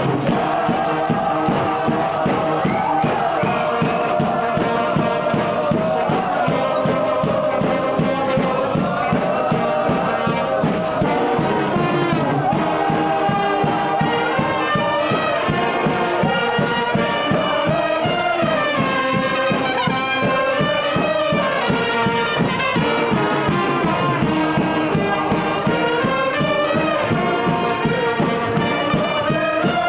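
A banda brass band playing a lively tune, trumpets and trombones carrying the melody over a steady beat.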